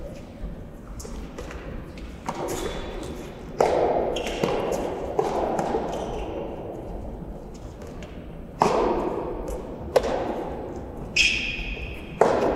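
A soft tennis rally: the rubber ball is struck by rackets again and again, giving sharp pops at irregular intervals of about one to two seconds. Each pop rings briefly in the large hall.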